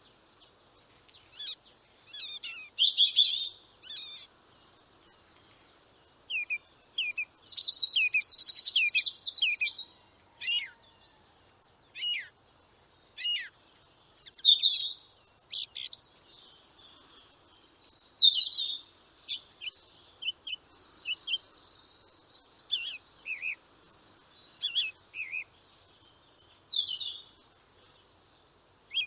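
Bald eagle calling: bouts of high, thin chirps and quick chittering runs, repeated many times with short gaps between.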